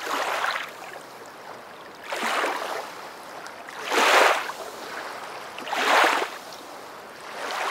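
Small waves breaking and washing up onto a sandy shore. The surf swells and falls back about every two seconds, and the swells near the middle are the loudest.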